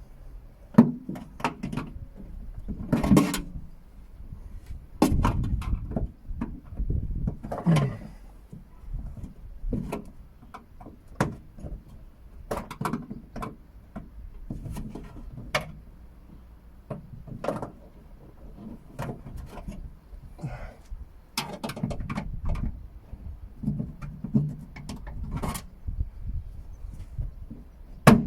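A hand tool prodding and prying at the plastic retaining clips of a car's tailgate handle: irregular clicks, knocks and scrapes of plastic, with the clips refusing to release.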